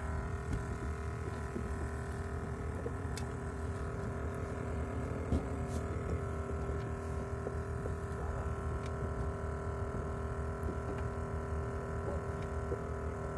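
Steady engine-like hum with several even tones over a low rumble, and a few faint clicks.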